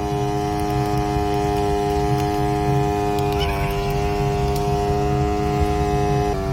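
Background music: sustained chords over a low bass. The chord changes about halfway through and again near the end.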